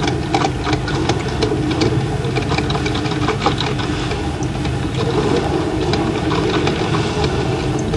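Drip coffeemaker brewing: a steady low rumbling hum from the boiling water and heater, with irregular crackles and pops throughout.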